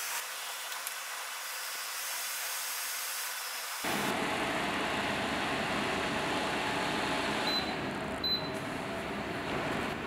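Steady fan noise and air rushing from a 140 W evaporative air cooler running, fuller and a little louder about four seconds in. Two short high beeps, typical of its touch control panel, come just before and just after the eight-second mark.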